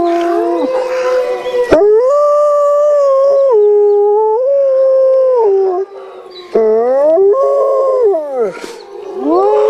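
Wolf howling: a string of long howls that hold steady pitches and step up and down between them. A short lull comes about six seconds in, then a howl that rises, holds and falls, and another rising howl starts near the end.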